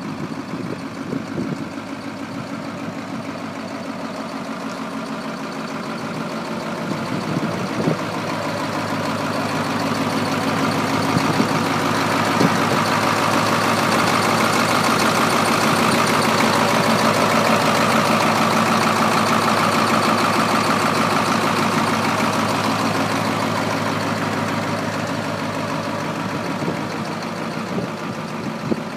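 Detroit Diesel 8.2-litre V8 diesel in a yard spotter truck idling steadily with its cab tilted up. It grows louder toward the middle, when heard up close at the exposed engine, and fades again.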